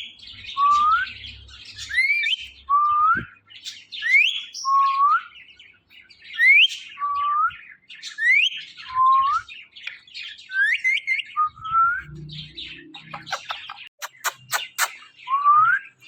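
A pet parrot whistling a repeated two-note call, a high rising note followed by a lower rising note, about every two seconds, with a quick run of sharp clicks near the end.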